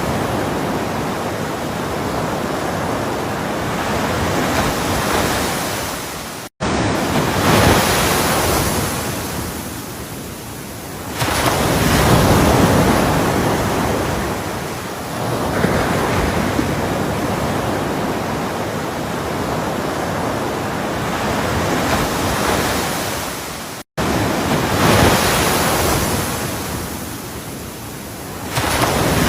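Ocean waves breaking and washing ashore, the surf swelling and falling back in surges every few seconds. The sound cuts out briefly twice, about six seconds in and near the end.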